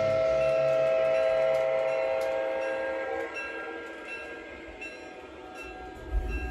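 An MTH O gauge CSX diesel locomotive's onboard sound system blows its horn in one long, steady chord that fades out about three seconds in. A low rumble of the model train running on the track comes in near the end.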